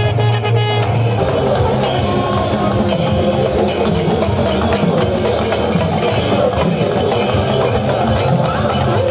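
Kerala temple percussion ensemble: a kombu horn's low held blast ends about a second in, and drums carry on in a dense, fast rhythm.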